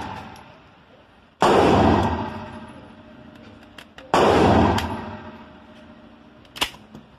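Pistol gunshots at an indoor range: two loud sharp reports about three seconds apart, each with a long echoing decay, and a third right at the end. A short sharp click from the pistol being handled comes shortly before the last shot.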